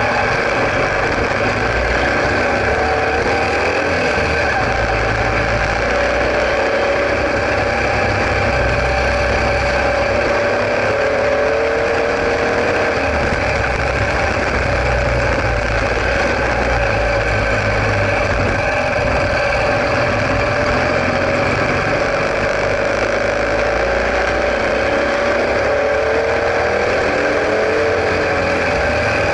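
Sidecar motorcycle's engine running under way, its pitch rising and falling as the throttle is opened and closed, over a steady rush of noise.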